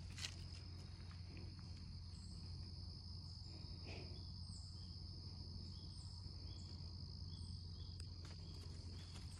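Faint insect chorus in the woods: a steady, high-pitched drone of chirping, with a few soft clicks.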